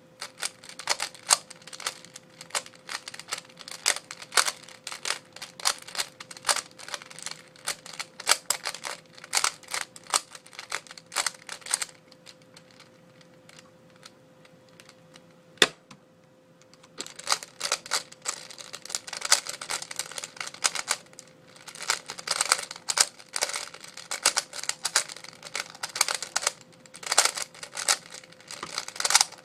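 A Type C-II 3x3 speedcube's plastic layers being turned very fast: a dense, rapid clatter of clicks for about twelve seconds, a pause of about five seconds broken by a single sharp click, then fast turning again to the end.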